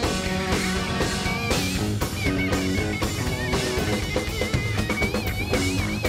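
Live rock band playing an instrumental passage: electric guitar over drum kit and bass, with a high guitar line of held notes that waver up and down.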